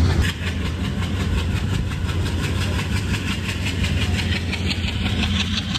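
ALCO diesel locomotive engines running steadily under a hauled passenger train, heard from on board: a low drone with a fast, even pulsing beat.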